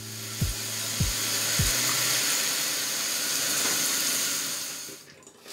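Kitchen tap running steadily, then dying away about five seconds in, with a few soft knocks in the first couple of seconds.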